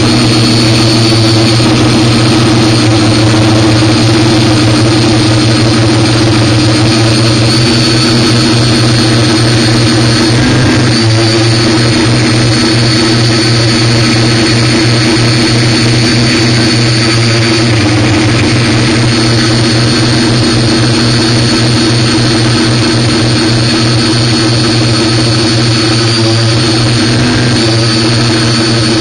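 Electric motors and propellers of a multirotor drone, heard through a camera carried on it: a loud, steady hum with a high whine, the pitch shifting briefly about eleven seconds in as the motors change speed.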